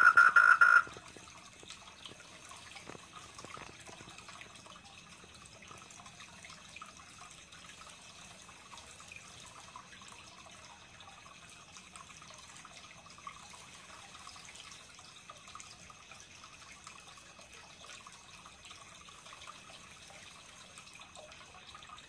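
Tree frog (Polypedates leucomystax) calling loudly in a fast pulsing run that cuts off about a second in. After it, a faint steady trickle of water in the koi pond.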